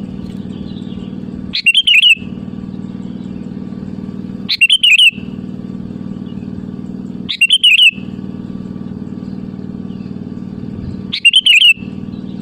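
Sooty-headed bulbul (kutilang) calling to rivals. A short bubbly phrase comes four times at even spacing about three seconds apart, over a steady low hum.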